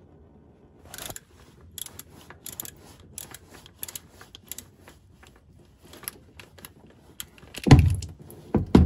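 Socket ratchet on an extension clicking in short irregular runs as it turns a cap-type filter wrench, loosening the oil filter. A louder clatter comes near the end.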